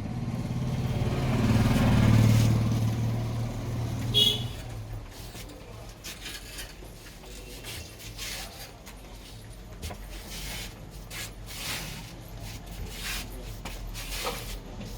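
A motor vehicle passing on the street: its engine hum swells to a peak about two seconds in and fades out by about five seconds, with a brief sharp high-pitched sound just after four seconds. After that, scattered soft taps and clicks over low background hum.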